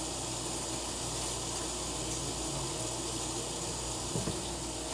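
Steady hiss as a pan of hot browned ground beef is drained of its grease, with a light knock about four seconds in.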